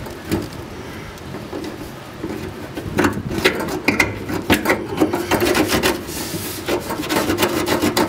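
Rubbing, scraping and light clicking of hands and metal parts as a fitting is forced into place under the car, the clicks coming thick from about three seconds in.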